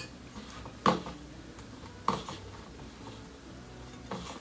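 Metal mixing bowl clinking and knocking three times, about a second in, about two seconds in and near the end, as dough is mixed in it by hand.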